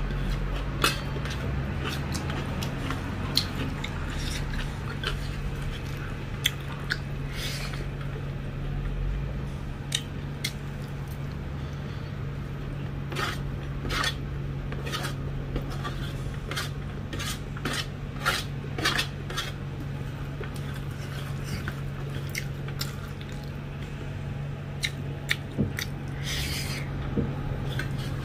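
Eating rice by hand from a stainless-steel plate: fingers scraping and tapping on the metal in scattered sharp clicks, with wet chewing, over a steady low hum.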